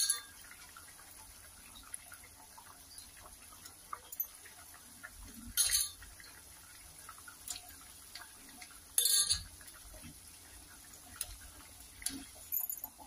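Pieces of kilanga fish going into a pot of boiling tamarind fish curry. There are three short clinks and splashes of utensil, bowl and liquid against the pot: one at the start, one about six seconds in and one about nine seconds in, with smaller taps near the end.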